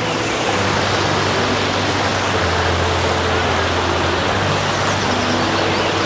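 Waterfall rushing, a loud, steady, even wash of falling water. A low hum runs beneath it and swells for about two seconds in the middle.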